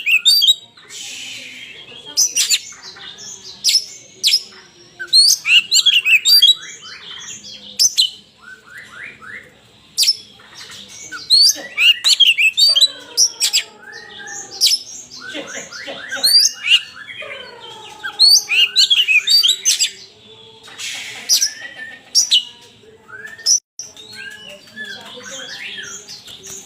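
Oriental magpie-robin (kacer) singing loudly and without pause in its full, combative 'gacor tarung' song. It is a varied run of sharp chirps, whistles and rapid trills, with lower gliding whistles around the middle.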